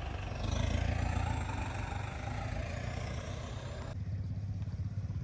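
Swaraj 963 FE tractor's diesel engine running steadily at low revs. About four seconds in the sound turns duller, leaving a fast, even low chugging.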